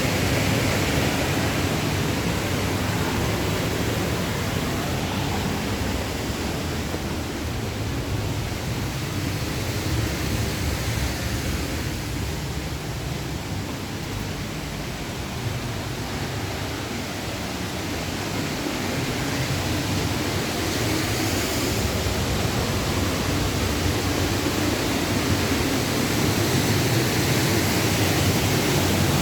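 Steady rushing of a waterfall, a little quieter in the middle and louder again near the end.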